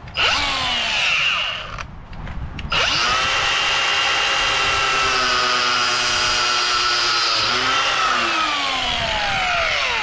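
Milwaukee M18 cordless angle grinder with a cut-off disc cutting through a hydraulic hose: a short run that stops after about a second and a half, then a long steady whining run that winds down near the end.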